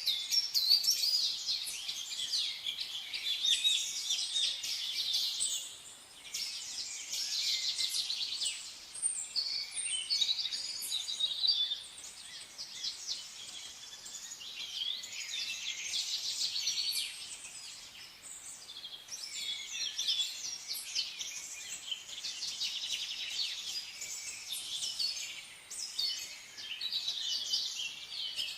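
A chorus of many songbirds chirping and singing at once, with rapid, overlapping high chirps that thin out briefly a few times.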